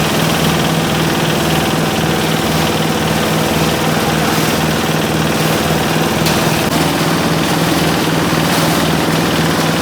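Diesel engine of a grass chopper and crusher machine running at a steady, even speed.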